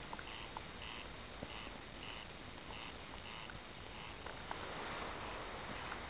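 Wood bonfire crackling: scattered sharp pops over a low steady hiss. A faint chirping call repeats about every half second in the background.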